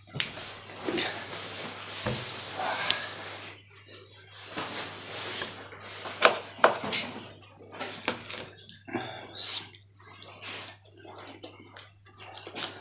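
A knife cutting into a boiled meat sausage on a wooden board while the meat is handled, giving wet, squishy cuts with a few sharp clicks. A steady low hum runs underneath.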